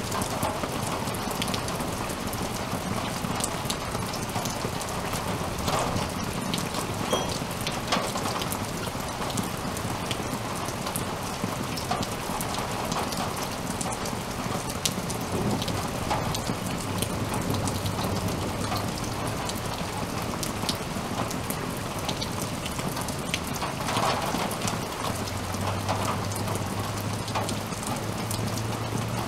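Steady rain falling on a lawn and nearby surfaces, with frequent sharp ticks from drops landing close by.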